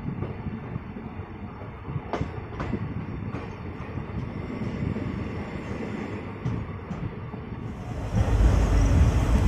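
Passenger train running, heard from on board: a steady rumble with a few sharp wheel clicks over rail joints, growing suddenly louder and fuller about eight seconds in.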